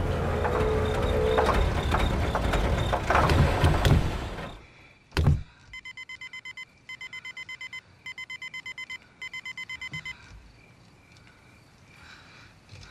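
A car engine runs rough and cuts out as it runs out of fuel, about four and a half seconds in. A single thump follows, then the car's warning chime beeps rapidly in four short bursts.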